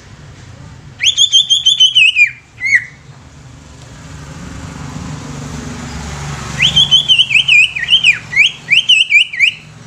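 Caged green leafbird (cucak ijo) singing two bursts of rapid, loud whistled notes, each note a quick downward slur. The first burst comes about a second in and is short; the second starts a little past the middle and runs nearly to the end.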